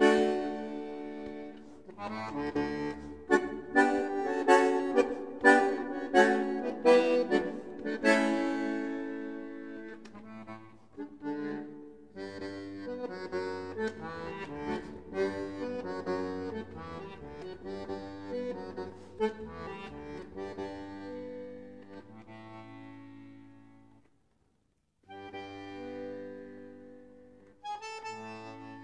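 Bandoneón playing: a run of fast, sharply accented chords and notes, then softer held chords, with a short break near the end before it resumes.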